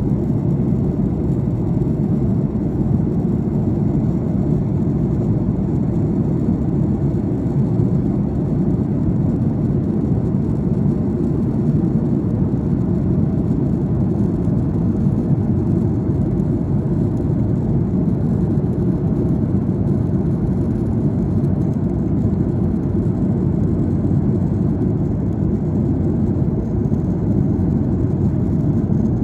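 Steady low roar of an airplane's engines and rushing air heard inside the passenger cabin during descent.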